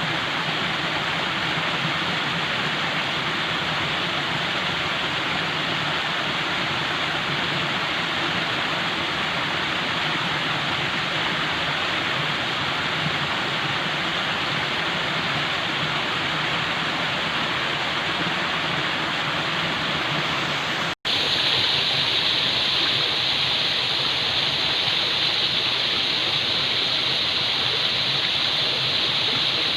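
Falling water rushing steadily, like a waterfall. About two-thirds of the way through it drops out for an instant and comes back slightly louder and brighter, as if a different stretch of recording has been spliced in.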